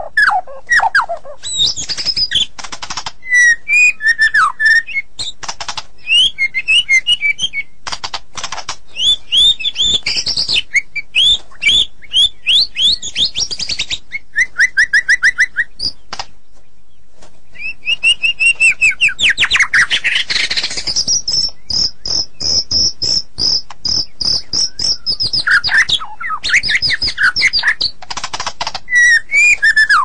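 White-rumped shama (murai batu) singing vigorously: a long, varied song of quick whistled phrases and sharp chattering notes, with a rapid trill just before a brief pause a little past halfway.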